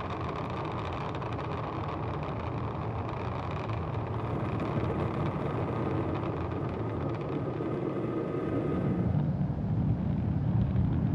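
Rocket engine roar from a SpaceX Super Heavy booster firing its engines as it descends to be caught, heard from the footage played in the hall. About nine seconds in, the roar turns deeper and louder.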